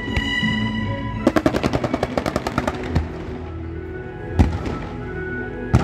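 Ground fireworks firing: a rapid volley of sharp reports, about ten a second for a second and a half, then two single loud bangs, with music playing underneath.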